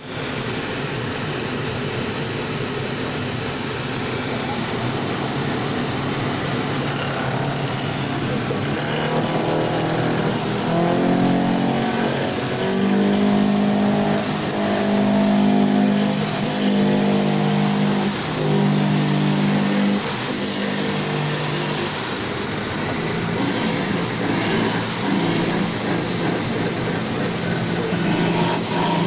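CNC wood lathe running with steady machine noise. From about a third of the way in to about three quarters, its motors whine in held tones that jump from pitch to pitch in steps.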